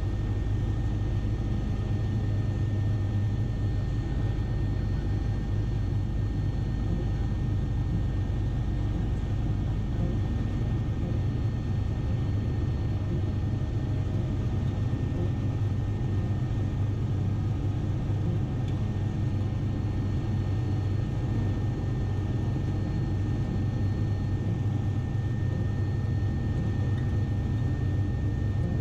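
Bell 407 helicopter in flight: its main rotor and Rolls-Royce 250 turboshaft engine make a steady, even low drone with a thin, constant high whine over it.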